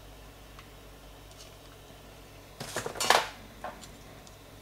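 Metallic clinks and a short clattering rattle as a screwdriver works the ignition pulse generator module loose from an aluminium distributor housing, followed by one lighter click.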